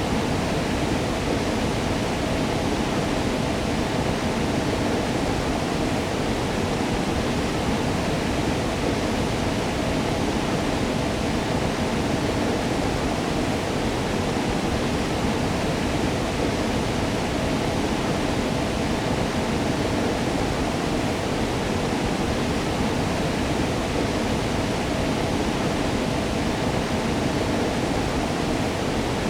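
Waterfall: a steady, even rush of falling water, fullest in its low and middle range.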